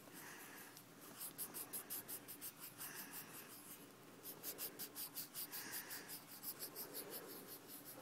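Yellow colored pencil scratching back and forth on notebook paper, faint and quick at about five strokes a second, in two runs with a short pause about four seconds in.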